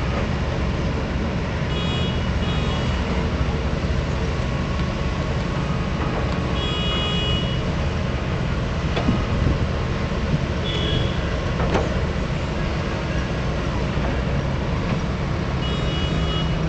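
Excavator's diesel engine running steadily, with a short warning alarm beeping four times.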